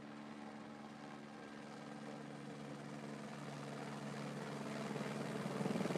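Eurocopter AS350 B3 single-turbine helicopter approaching, its steady engine and rotor sound growing louder throughout, with the rotor beat becoming distinct near the end.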